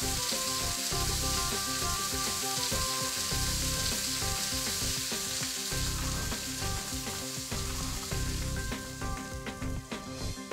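Lamb kofta frying in a little olive oil, sizzling steadily. The sizzle thins out near the end, where a few light clinks of utensils come in.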